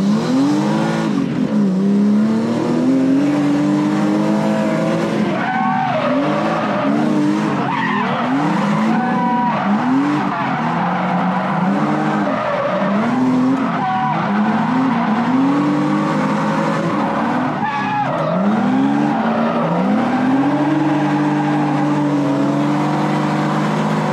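1997 BMW E36 M3 drift car's inline-six engine revving up and falling back again and again, every second or two, heard from inside the caged cabin during a drift, with tires squealing and skidding.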